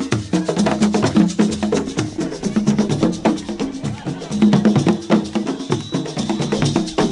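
Music with fast, dense drumming over a steady, moving bass line.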